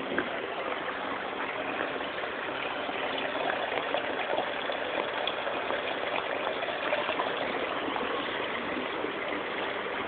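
Spring water welling up and gushing from a stone spout, pouring over rocks as a steady rush of running water.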